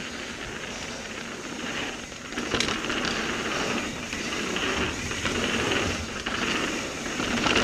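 Spank Hex Drive rear hub freewheeling on a coasting mountain bike, a rapid ratcheting buzz mixed with tyre noise on a dirt trail, swelling in loudness a few times.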